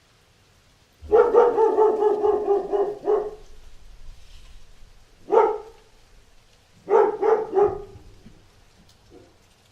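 A dog barking: about a second in, a rapid string of barks for some two seconds, then a single bark, then a quick burst of three or four barks, and a faint last one near the end.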